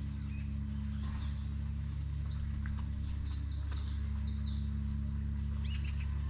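Many small birds chirping and trilling in quick, high runs over a steady low hum that holds several fixed pitches and is the loudest thing throughout.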